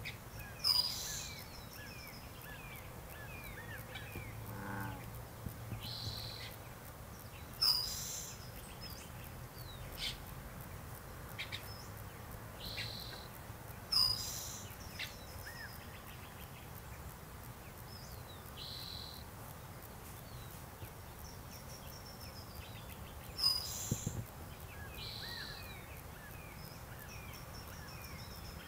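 Dawn chorus of mixed birdsong, with calls of a red-shouldered hawk, a Pacific-slope flycatcher and California quail among the chirps and songs. A loud, sharp call stands out four times, several seconds apart.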